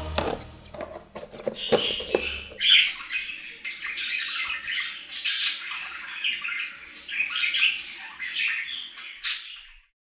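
Budgerigars chattering and squawking: a busy run of short, harsh calls from about two seconds in, stopping just before the end.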